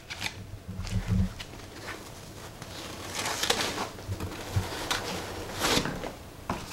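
Handling noise from unpacking a boxed action figure: light rustling of packaging with scattered small clicks, and a few soft knocks about a second in.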